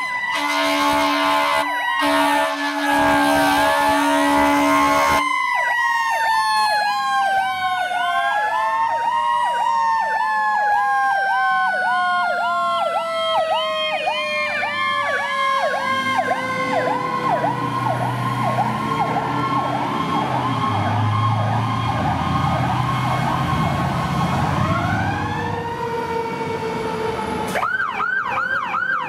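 Seagrave fire engine responding: blasts of its air horns over a rising and falling siren wail for the first five seconds, then a rapid yelp over a long siren tone that slowly winds down, with the truck's diesel engine rumbling as it passes. Near the end the sound cuts to another fire truck's faster, higher yelp siren.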